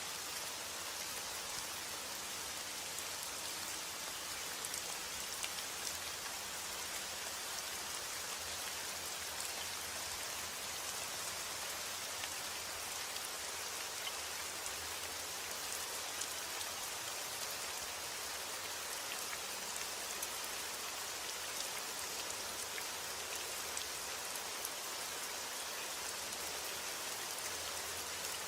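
Steady rain falling, with many small drop ticks spread through it on a surface.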